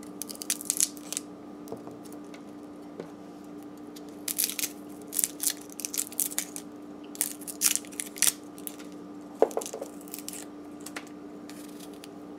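Garlic cloves being peeled with a small paring knife: the dry papery skin crackles and tears in short, scratchy bursts, over a steady low hum. A single sharper click sounds a little after nine seconds in.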